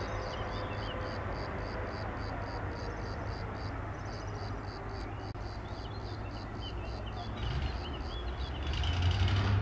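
Bombardier TRAXX electric locomotive running with a steady low hum as it rolls in slowly and stands; the hum swells louder near the end. Birds chirp over it, with a fast, evenly repeating high chirp throughout.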